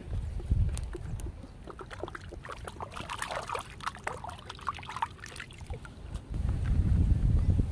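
Water splashing and dripping in many quick small splashes, busiest in the middle. A low wind rumble on the microphone rises near the end.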